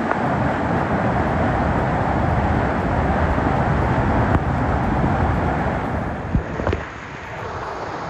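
Steady roar of rushing water from a large waterfall, a dense even noise that drops somewhat in level about seven seconds in.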